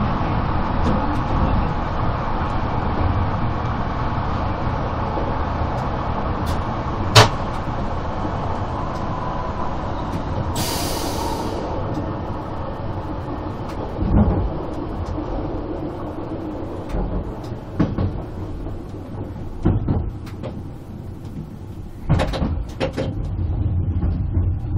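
Stadler GTW 2/6 electric railcar running on a metre-gauge line, heard from the driver's cab: a steady rumble of wheels on rail. A sharp click comes about seven seconds in and a short hiss about ten seconds in. Several knocks follow in the second half, clustering near the end as the train runs onto the station points.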